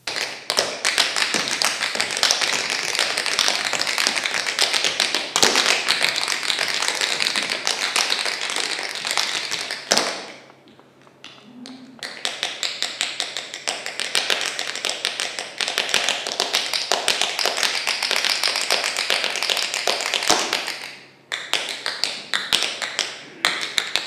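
Tap dancing: tap shoes striking a stage floor in fast, dense runs of taps. The taps stop for about two seconds near the middle and again briefly near the end.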